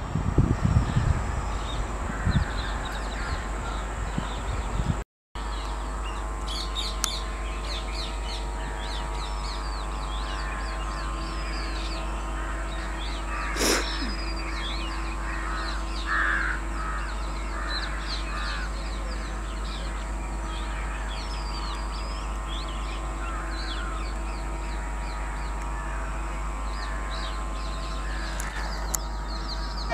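Outdoor birdsong: crows cawing now and then over many small birds chirping, against a steady background hum. A low buffeting rumble fills the first couple of seconds, and there is a single sharp click about 14 seconds in.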